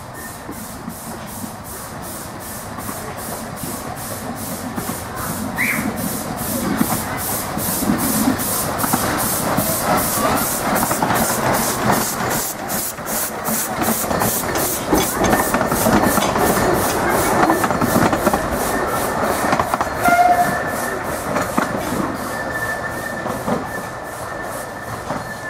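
A 15-inch gauge miniature railway train passing close by, its wheels clicking evenly over the rail joints, about two or three clicks a second. The running noise builds as it approaches, is loudest in the middle as it goes past, then fades as it moves away, with a thin high squeal in the second half.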